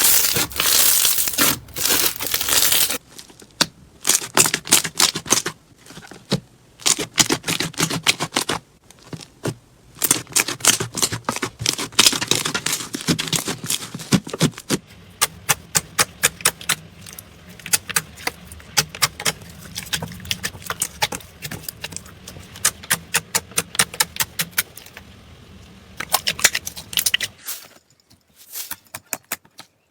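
Slime being squeezed and pressed by hand, giving rapid runs of crackling, popping clicks in separate stretches, with a brief pause near the end.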